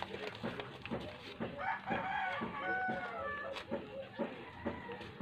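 A rooster crows once, from about one and a half to three seconds in. Around it are short crinkles and taps from a plastic packet being handled.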